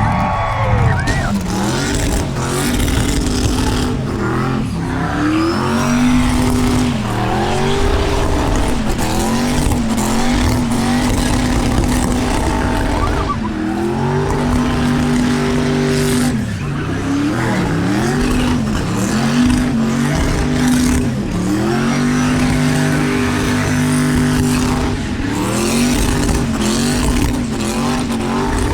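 V8 engine revving hard through a burnout, held at high revs and dropping and climbing back again and again, with the hiss of spinning tyres underneath.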